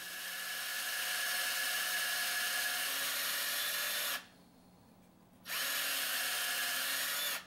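Electric power drill boring out a fishing rod's handle. It runs steadily for about four seconds, stops for about a second and a half, then runs again.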